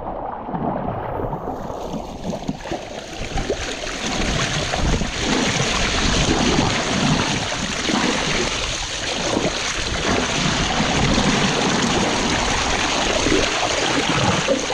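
Wind buffeting the microphone and water rushing along the hull of a small sailboat under way, with a steady hiss that comes in about a second and a half in and stays.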